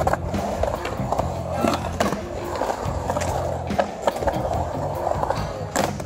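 Skateboard wheels rolling and carving on the concrete of a skate bowl, with sharp clacks of the board now and then and a loud one near the end. Background music with a bass line plays underneath.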